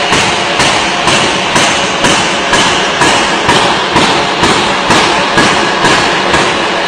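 Forging hammer striking metal in a steady rhythm, about two blows a second, over loud continuous workshop noise.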